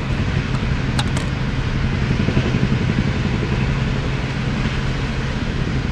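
Steady low rumble of city street traffic, with a faint click about a second in.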